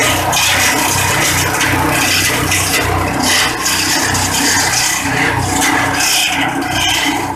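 Portable petrol-engine organic-waste chopper running under load while grass is fed in: a steady loud rushing, shredding noise over the small engine's low pulsing throb.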